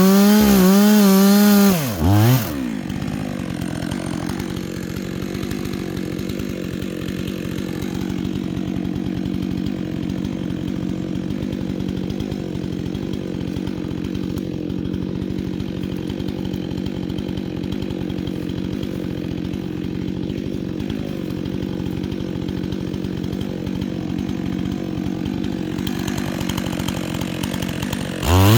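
Chainsaw engine running at high revs for the first two seconds or so, then dropping to a steady idle that runs until loud revving starts again near the end.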